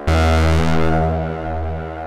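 Dreadbox Dysphonia analog synthesizer playing a low note that starts sharply, bright at first, then fades, its tone shifting about half a second in; the recorded control voltage is routed to the oscillator's pulse width.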